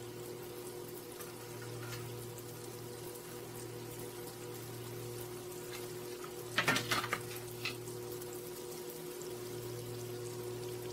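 Twisted doughnuts sizzling in a pot of hot oil: an even, crackling hiss over a steady low hum. About six and a half seconds in there is a brief cluster of sharp clicks as metal chopsticks knock against the pot.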